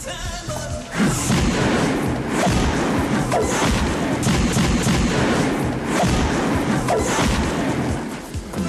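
Loud fight-scene soundtrack music that swells about a second in, with heavy thuds and booms roughly once a second, like punches landing.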